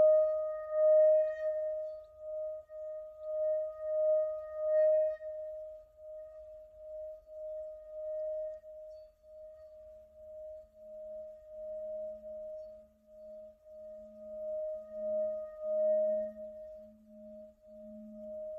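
Tibetan singing bowl being sung by a mallet rubbed around its rim: one clear ringing tone that pulses in loudness about twice a second, its higher overtones fading out. About ten seconds in, a deeper humming tone joins and swells.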